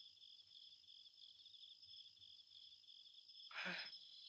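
Faint crickets chirping steadily, a night-time chorus. About three and a half seconds in there is a brief vocal grunt with falling pitch.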